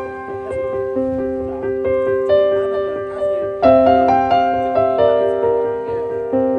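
Gentle solo piano music: a slow melody of single struck notes, each ringing out and fading, over held lower chords.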